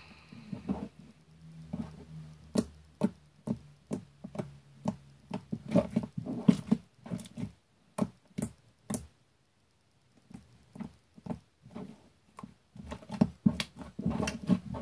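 Slime being squeezed and poked by hand, giving an irregular run of sharp, wet pops and clicks with a brief pause partway through.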